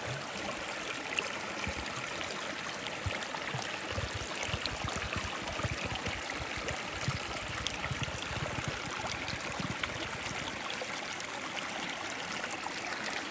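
Shallow creek water rushing steadily over rocks, with a plastic bottle held under the surface filling up and gurgling in short glugs through the middle.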